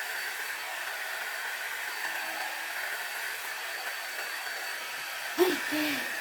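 Hair dryer blowing steadily on natural hair being blow-dried. Near the end there is a brief vocal sound.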